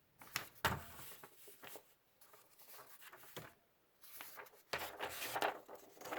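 Handling noises: rustling and light knocks and clicks, loudest just after half a second in and again near the end.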